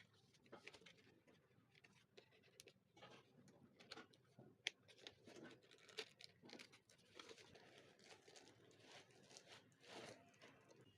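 Faint handling noises of packaging being opened: an irregular run of small clicks, taps and short rustles, with one sharper click about halfway through.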